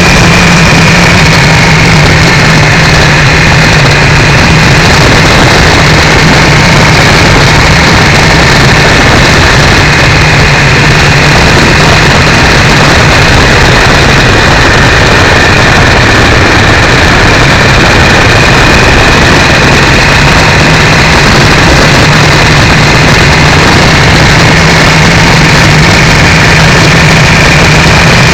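Triumph 955i motorcycle's three-cylinder engine running at steady revs under loud wind rush, picked up by a cheap camera microphone strapped to the foglight. The recording is overloaded and distorted throughout.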